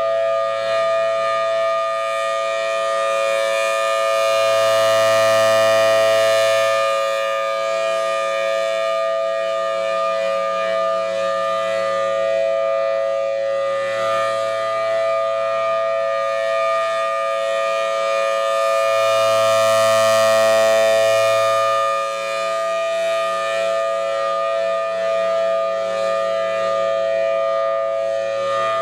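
Federal Signal Thunderbolt 1000TB tornado siren sounding a steady chord during a test, swelling louder twice about fifteen seconds apart as its rotating horn sweeps past.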